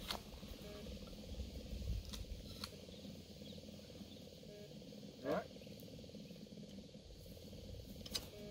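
Quiet outdoor background: a faint low rumble with a few soft clicks, and one short rising chirp about five seconds in.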